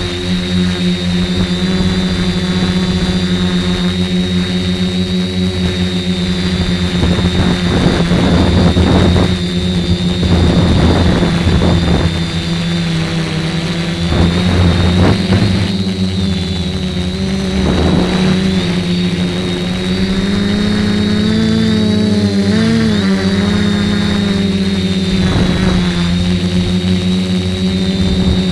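DJI Flame Wheel F450 quadcopter's four brushless motors and propellers buzzing steadily in flight, with a high whine over a lower drone, heard from a camera mounted on its frame. The pitch wavers with throttle changes about two-thirds of the way through, and short rushes of wind noise come and go.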